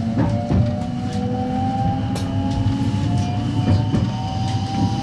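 Electric train running as it pulls away, heard from inside at the front: the motor whine rises slowly and steadily in pitch as it picks up speed, over a low rumble of the wheels, with scattered clicks as the wheels pass over rail joints and points.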